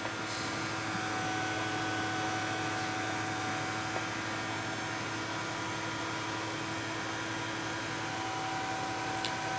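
AC TIG welding arc from a Miller Dynasty 350 on aluminum pipe, a steady buzzing hiss with a constant pitch while the root pass is laid. A faint click sounds near the end.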